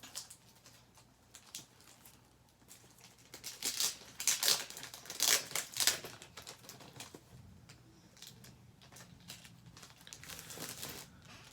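Plastic packaging crinkling and rustling in bursts as a graded comic slab is handled, loudest in the middle and again briefly near the end.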